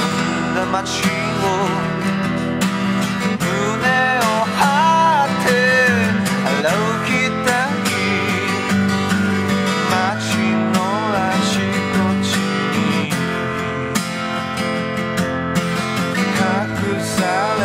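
Recorded rock song with strummed acoustic guitar under a melody line that bends and wavers in pitch.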